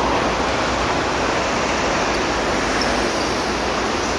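Steady rushing background noise with no distinct events, like distant road traffic.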